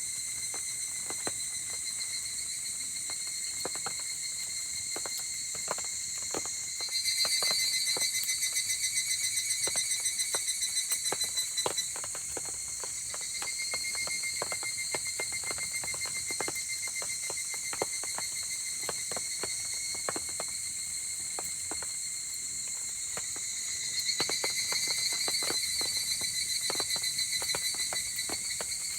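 Insects calling in a steady high-pitched chorus that swells into a louder, rapidly pulsing trill about seven seconds in and again near the end, over scattered sharp pops and ticks of a crackling wood fire in the rain.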